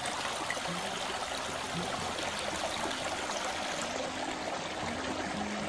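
Small river running: a steady rush of flowing water.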